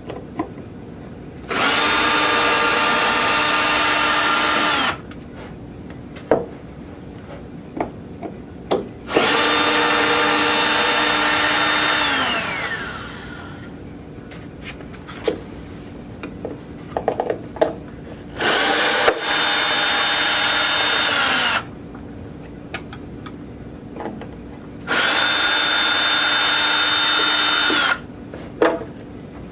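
Power drill running in four bursts of about three seconds each, backing out the screws that hold the case to the board; the second run winds down with a falling pitch. Small clicks and knocks of handling come between the runs.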